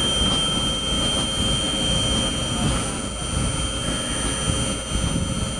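Steady low rumble and wind buffeting the microphone while riding along on an amusement-park monorail ride, with a thin steady high-pitched tone above it.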